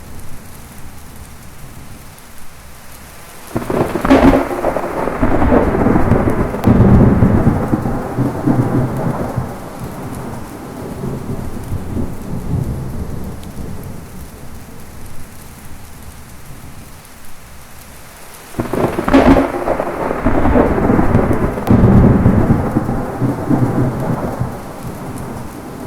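Heavy rain falling steadily, with two thunderclaps, one a few seconds in and another about two-thirds of the way through. Each opens with a sharp crack and rumbles on for several seconds.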